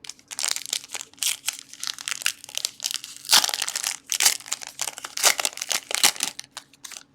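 A trading card pack wrapper being crinkled and torn open by hand, a dense run of plastic crackling that starts and stops abruptly.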